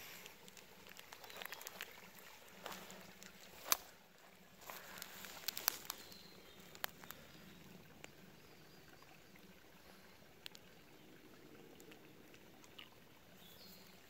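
Faint rustling in dry twigs and leaf litter on a forest floor, with a few sharp clicks and snaps scattered through. The loudest click comes a little under four seconds in.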